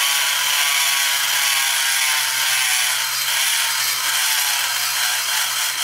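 High-speed rotary tool with a long bit grinding steadily inside a runner of a Ford GT40 cast-aluminium lower intake, porting it. It makes a continuous high-pitched whine under a hum from the motor.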